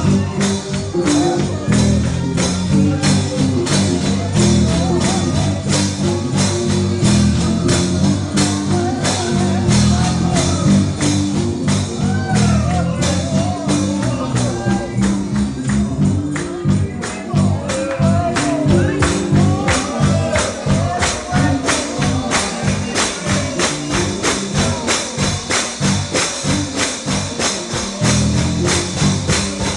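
Upbeat gospel-style music: a tambourine keeps a steady beat over a bass line, with voices singing.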